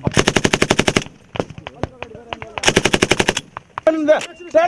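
Bursts of automatic gunfire from a machine gun: two rapid strings of about ten shots each, with a few scattered single shots between them. A man shouts briefly near the end.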